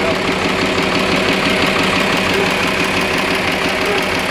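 A large engine idling steadily.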